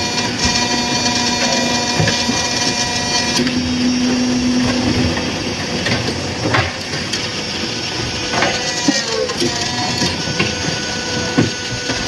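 Interlocking brick-making machine running: a steady motor hum with held tones that shift every few seconds, and scattered knocks and clatter.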